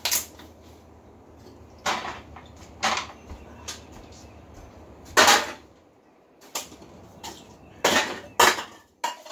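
A series of short, sharp knocks and clatters, about eight in all, with the loudest one about five seconds in.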